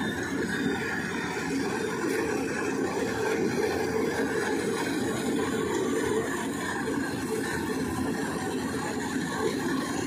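Lovol RG108 Plus combine harvester running steadily while cutting and threshing paddy: a constant drone of engine and machinery with no breaks.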